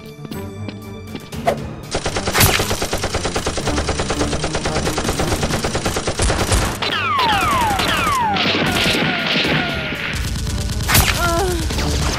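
Rapid machine-gun-style gunfire sound effect standing in for Nerf blaster fire, starting about two seconds in as a fast, even string of shots. From about seven seconds, several descending whistling zips sound over the shots.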